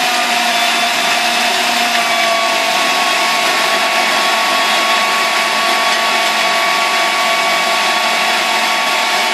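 Electric food processor whizzing at speed, blending chopped onion, ginger, garlic and a chili into a paste: a loud, steady motor whine.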